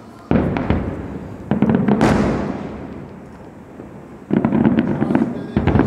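Aerial fireworks display: a series of sudden bursts of dense crackling and bangs, one about a third of a second in, two more around one and a half and two seconds, and two near the end, each trailing away.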